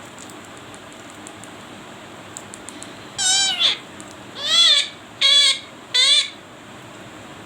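Parrot giving four loud, wavering calls in quick succession in the second half, with a few faint clicks just before.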